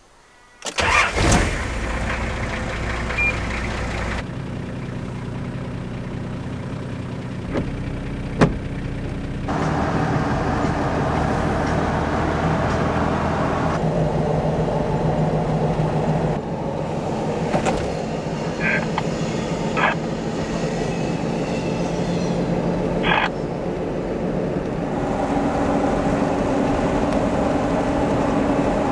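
A vehicle's engine cranked and started by key about a second in, then steady engine and road noise heard from inside the cabin while driving. The sound changes abruptly several times as separate driving stretches are cut together.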